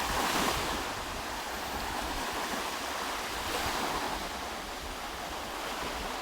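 Sea waves washing, with wind rumbling on the microphone; the wash swells about half a second in and again near four seconds.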